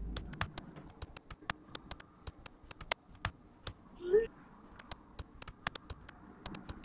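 Typing on a computer keyboard: a run of irregular, quick keystroke clicks. About four seconds in there is a short rising chirp.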